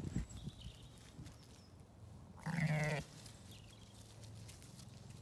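A Zwartbles sheep bleats once, a loud half-second call about two and a half seconds in.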